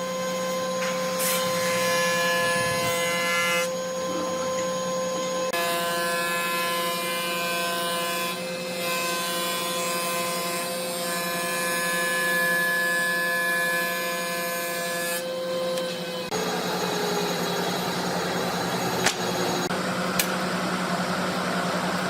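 Woodworking power tool running with a steady motor whine while working wood. About 16 seconds in the sound turns noisier and its pitch drops slightly.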